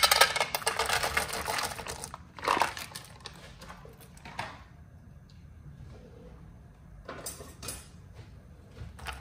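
Blanched almonds poured from a glass bowl into a ceramic-coated frying pan of oil, a dense clatter of nuts hitting the pan for about two seconds. A few separate knocks follow afterwards.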